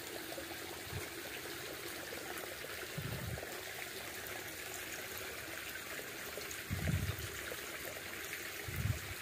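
Small stream trickling and flowing steadily over stones, with a few dull low thumps about 3, 7 and 9 seconds in.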